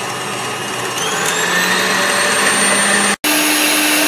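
KitchenAid stand mixer running with its wire whisk, beating eggs and sugar until they double in volume. The motor's whine rises as it speeds up about a second in, breaks off for an instant about three seconds in, then runs on steadily.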